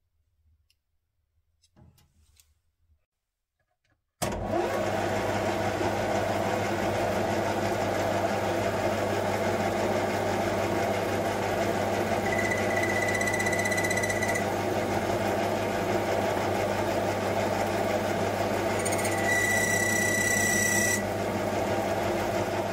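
Metal lathe cutting a stainless steel sleeve. After a few seconds of near silence with faint small clicks, the lathe's steady running hum begins abruptly about four seconds in. The cut squeals high-pitched twice, for about two seconds each, near the middle and near the end.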